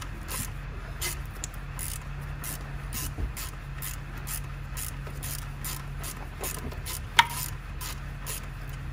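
3/8-drive ratchet clicking in short irregular strokes while loosening an engine mount stud, with one sharper metallic click about seven seconds in. A steady low hum runs underneath.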